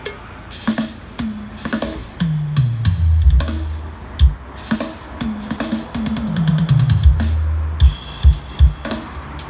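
Electronic music with a drum-machine beat and deep bass notes that slide down in pitch twice, played through a home-built BV 12 speaker cabinet under test.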